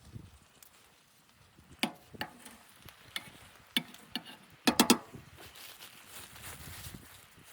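Scattered sharp knocks and clatters of objects being handled, the loudest a quick cluster of three about five seconds in, followed by a soft steady hiss.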